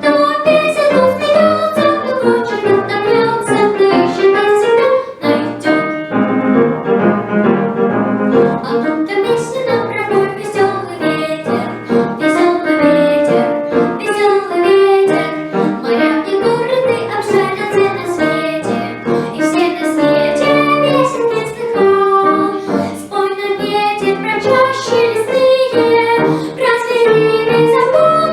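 A young girl singing a lively song over piano accompaniment.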